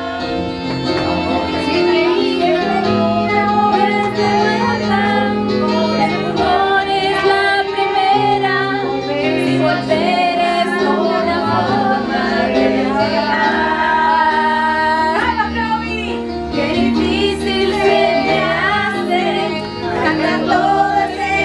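Karaoke song: music with a voice singing along, steady and loud throughout.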